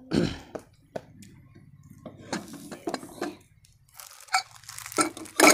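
Metal cookware and utensils clinking and knocking as they are handled, a few separate sharp knocks with some rustling in between.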